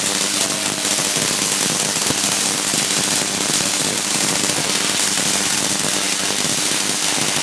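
Tesla coil firing metres-long lightning arcs into the air: a loud, steady crackling buzz with a low hum beneath it.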